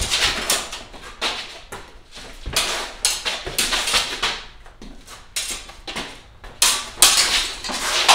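Smallsword sparring on a concrete floor: sharp clicks of the steel blades meeting, mixed with repeated scuffing and stamping of the fencers' shoes as they step and lunge, loudest near the end.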